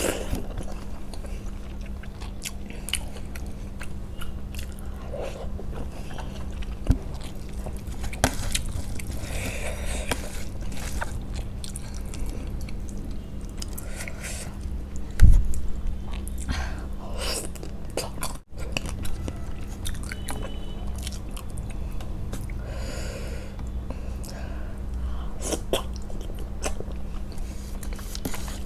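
A person chewing and biting food close to the microphone, with scattered small clicks and wet mouth noises, over a steady low hum. A single low thump about fifteen seconds in.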